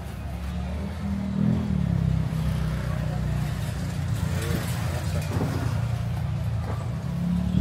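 A motor vehicle engine running close by, steady and low, with a brief rise in pitch about a second and a half in, over background voices.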